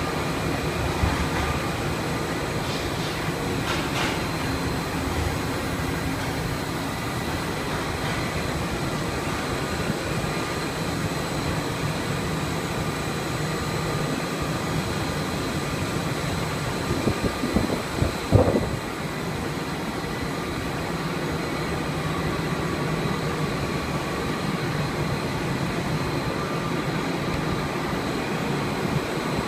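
Steady whir and hum of a running textile tenter frame (a 'ram') and its fans, with thin steady whines high up. A short cluster of knocks comes a little past halfway.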